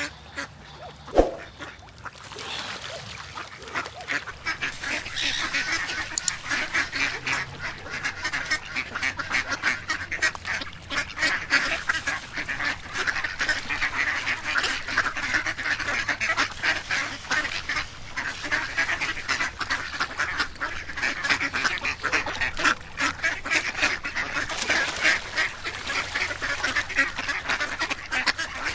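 Many ducks quacking and calling over one another in a steady, dense chorus. A single sharp click comes about a second in, before the calling builds up.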